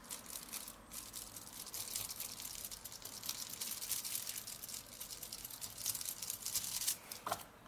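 Small tool scratching and stirring on aluminium foil with light, irregular crinkling, as gold pigment is mixed into a puddle of UV resin.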